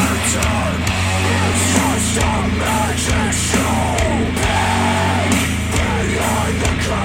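Loud heavy rock music with shouted vocals and guitar over a steady bass line, played back through bookshelf hi-fi speakers.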